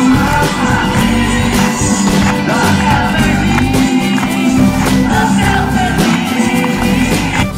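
Pop song with a steady beat and a sung vocal, played loud through PA loudspeakers.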